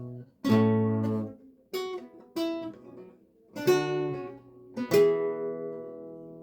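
Renaissance lute played slowly: about five plucked chords with short pauses between them, the last, about five seconds in, left to ring and fade.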